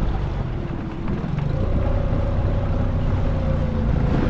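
Tohatsu 20 hp outboard motor running steadily under way, pushing the inflatable boat across the lake. A steady higher tone joins the engine note about a second and a half in.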